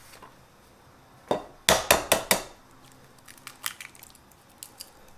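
An egg being cracked: a quick run of about five sharp knocks as the shell is tapped on a hard edge, then a few faint clicks as the shell is pulled open over the bowl.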